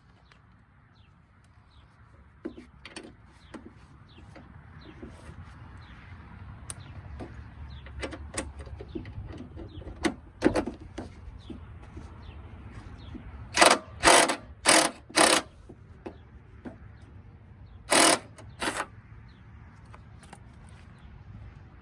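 Hand tools working at a rusted mower-deck bolt: scattered small metal clicks and scrapes, then a run of four loud knocks about half a second apart and, a few seconds later, two more.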